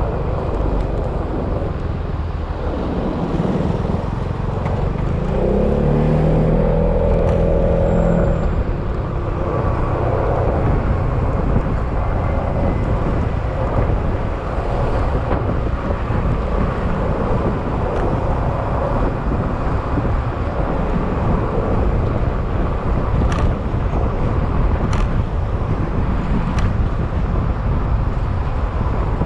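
Yamaha XMAX scooter's single-cylinder engine running under way, with steady road and wind noise. A few seconds in, the engine note climbs and then holds for a few seconds as the scooter accelerates. Three light clicks come near the end.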